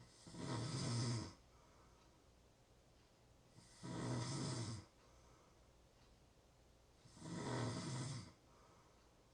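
A person snoring: three snores in a steady rhythm, one about every three and a half seconds, each lasting about a second with a low buzz, and quiet in between.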